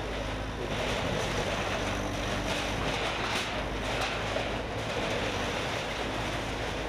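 An engine running steadily with a low hum, under a constant outdoor din.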